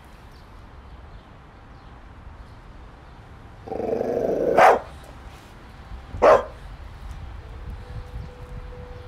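A dog barks twice, about a second and a half apart. The first bark comes out of about a second of low growling.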